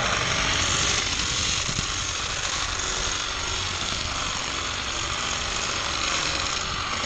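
A GoPro carried on a camera car rolling down a plastic orange Hot Wheels track, picking up a steady wheel-on-track noise as it runs.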